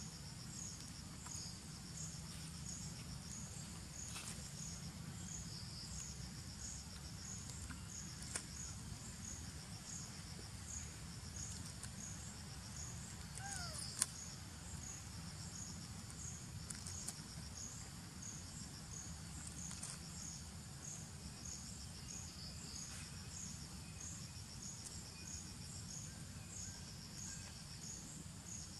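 Insects chirping: a high chirp repeating about one and a half times a second over a steady high trill, with a low steady rumble underneath. A single sharp click about halfway through.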